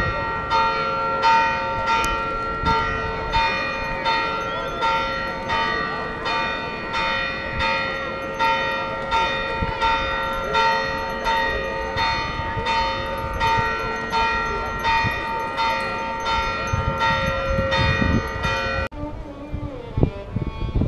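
Church bells ringing a steady peal, about three strokes every two seconds, each tone ringing on between strokes. The ringing cuts off abruptly near the end, leaving a few scattered knocks of street noise.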